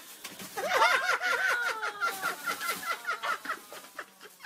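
A person laughing in a quick run of high-pitched giggles that starts about half a second in and lasts about three seconds.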